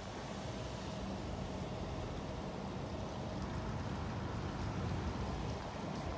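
Road traffic noise: cars driving through an intersection, a steady rumble and hiss of engines and tyres.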